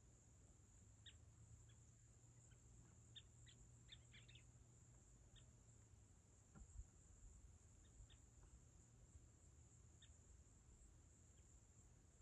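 Faint evening outdoor ambience: a steady high insect drone, typical of crickets, with scattered short bird chirps and a low hum underneath.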